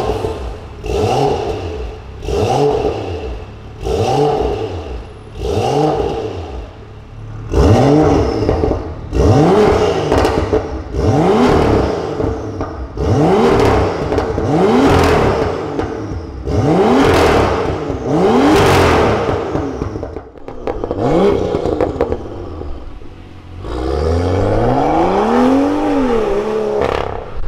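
BMW M2 F87's turbocharged straight-six revving in repeated blips, about one every one and a half seconds, through an Armytrix turbo-back, de-catted, straight-piped valved exhaust. The first blips come with the exhaust valves closed; after about seven seconds the valves are open and the revs get louder. Near the end a longer rising run comes as the car drives off.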